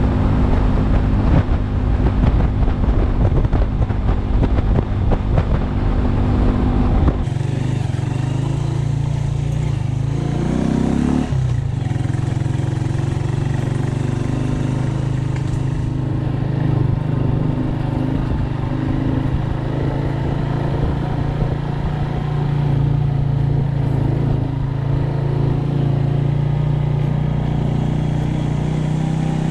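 Motorcycle ridden at road speed with heavy wind buffeting on the microphone. About seven seconds in this cuts to the motorcycle's engine running slowly on a dirt track. It revs up briefly a few seconds later, then holds a steady low hum.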